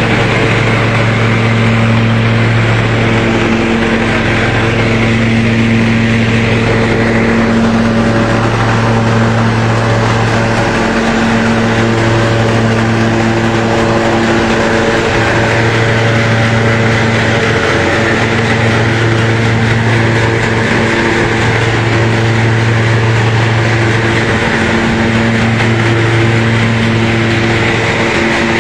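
Hazelnut thresher (patoz) running steadily while threshing, a loud mechanical drone with a low hum that dips briefly every few seconds.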